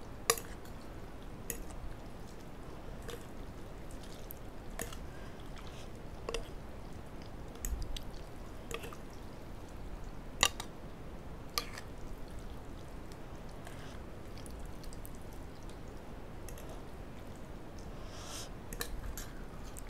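Metal spoon and fork stirring and lifting instant noodles in a ceramic bowl of hot soup: scattered sharp clinks of metal on the bowl, with the soup dripping and sloshing.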